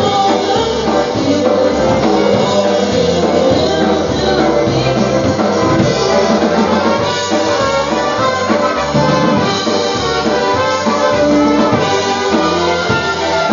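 Live polka band playing, with trumpets and accordion over a drum kit and a steady bass beat.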